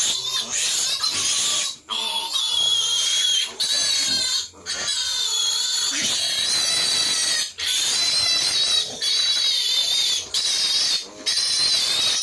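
A litter of young piglets squealing: several high-pitched, wavering squeals overlap almost without pause, broken by brief gaps every few seconds.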